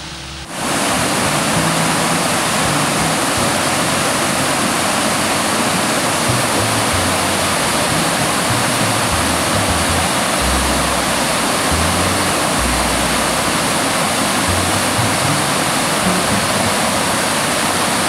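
Waterfall of white water rushing down a rocky creek bed, a loud, steady rush that starts suddenly about half a second in. Low music notes sound beneath it.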